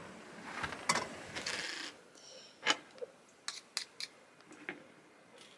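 Irregular sharp clicks and knocks of tableware being handled on a table, about five in all, after a short stretch of faint hiss.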